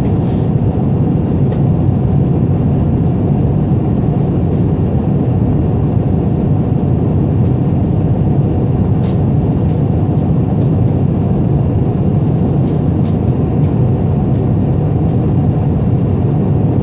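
Jet airliner cabin noise in flight: a steady, loud rushing drone of engines and airflow heard inside the cabin, with a few faint ticks.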